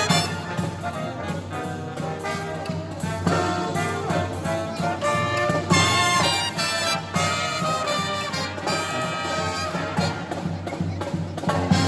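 Brass marching band with trumpets, trombones and drums playing an upbeat swing-style tune.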